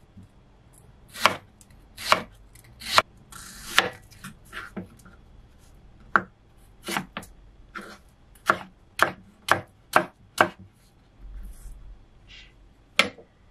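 Kitchen knife cutting peeled winter melon on a wooden cutting board: a dozen or so separate knocks of the blade meeting the board, irregularly spaced about half a second to a second apart, with a pause late on and one last cut near the end.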